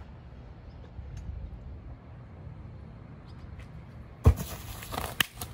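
A sharp thud a little past four seconds in, then lighter knocks about a second later, over a steady low rumble: a freerunner jumping off a bridge top and landing on the ground below.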